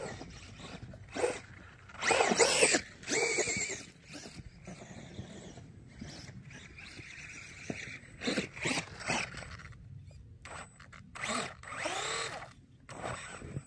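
Brushless electric motor of an RC buggy revving in several short bursts, its whine rising and falling in pitch, with quieter pauses between.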